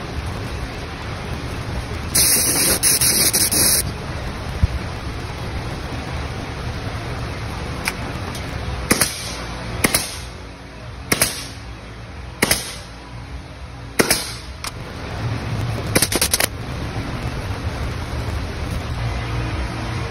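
Pneumatic upholstery staple gun firing single shots at uneven intervals, each a sharp crack with a short hiss of air after it, about eight in all. About two seconds in there is a steadier hiss lasting some two seconds.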